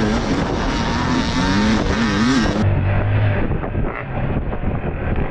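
KTM 250 XC two-stroke dirt bike engine revving up and down on the throttle. About halfway through the sound changes abruptly to a duller, rougher rumble with scattered knocks.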